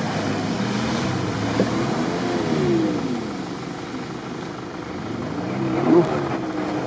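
Jeep Grand Cherokee engine revving up and down under load as it pushes through a deep, muddy puddle, with water splashing. The revs swell about two seconds in and climb again near the end.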